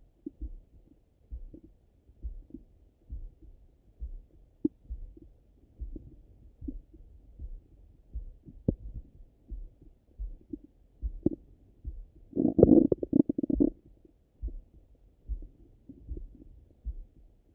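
Stomach and bowel gurgles heard through a Littmann stethoscope pressed on the belly, digesting after breakfast. Short scattered gurgles sit over a steady low pulse beating a little more than once a second. A longer, louder rumbling gurgle comes about twelve seconds in.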